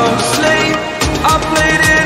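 Instrumental stretch of an electronic dance-pop track with sustained synth tones. A steady kick-drum beat of about four strokes a second comes in about a second in.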